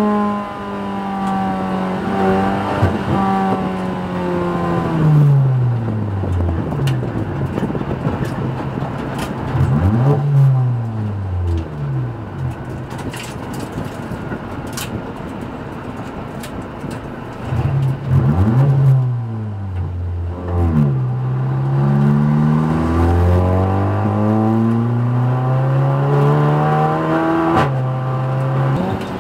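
Turbodiesel race car engine heard from inside the cockpit at speed on a circuit. Its note falls over the first several seconds as the car slows and changes down for a corner, with short throttle blips. In the second half it climbs again with stepped drops as the car changes up through the gears.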